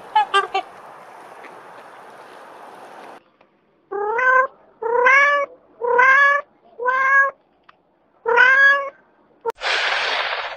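A cat meowing five times, each meow about half a second long and rising in pitch. Before the meows, a few short honks from waterfowl over a soft hiss; near the end, a loud burst of hissing noise.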